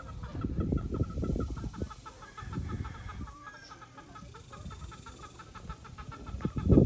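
Free-range chickens clucking over a steady, pulsing insect drone. Low rumbling thumps come at the start, about two and a half seconds in, and loudest just before the end.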